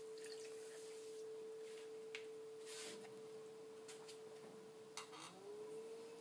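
Electric potter's wheel spinning, its motor giving a faint steady whine that dips in pitch about five seconds in and climbs back up. A few faint clicks and rubs from the clay tool.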